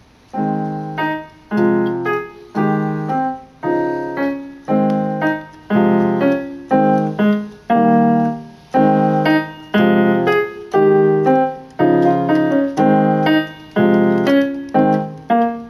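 Electronic keyboard with a piano voice playing a short, slow tune, a note or chord struck about once a second, each ringing out and fading before the next.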